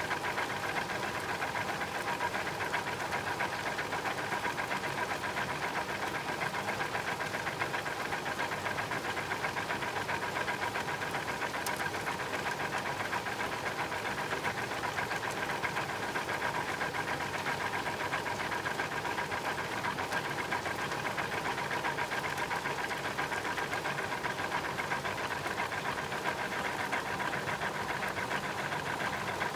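Washing machine's belt and pulley drive running, recorded close: a fast, even rattle with a steady whine under it.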